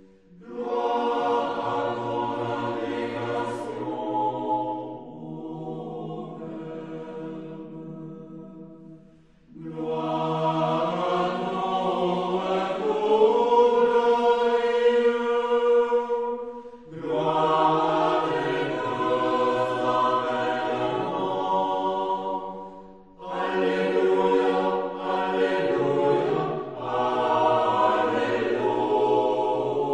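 A choir singing a slow sacred chant in long held phrases, with brief breaks for breath between them.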